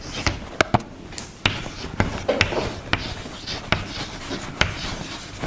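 Chalk writing on a blackboard: irregular sharp taps as the chalk strikes the board, with soft scratching strokes between them.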